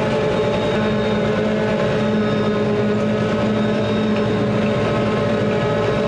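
Forage harvester chopping corn for silage: engine and cutting head running steadily under load as the rotary corn head takes in standing corn. A steady, even drone with a few held tones.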